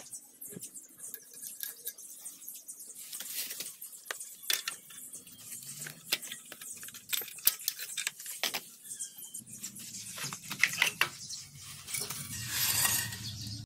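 Irregular metallic clicks, taps and clinks of an L-shaped wrench working the mounting bolts of a scooter's exhaust muffler, with a longer scraping noise near the end as the pipe comes loose.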